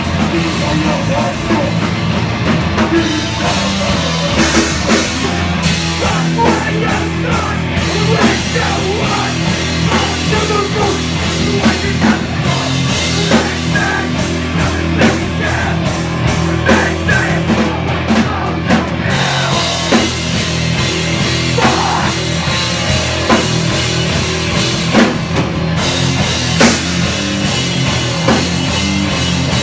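A live hardcore punk band playing loudly: distorted electric guitar and a pounding drum kit, with vocals into a microphone.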